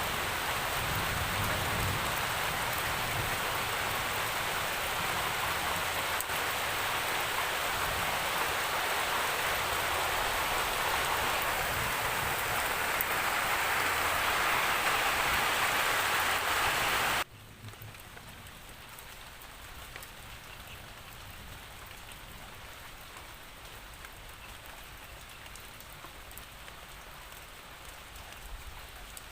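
Steady rain falling. About two-thirds of the way through it drops suddenly to a much quieter, lighter rain with scattered faint drop ticks.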